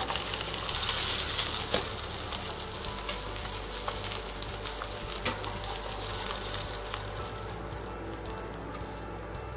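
Salmon fillets sizzling in hot oil in a non-stick frying pan as they are lifted out with a metal spatula, with a few clicks of the utensils. The sizzle fades toward the end.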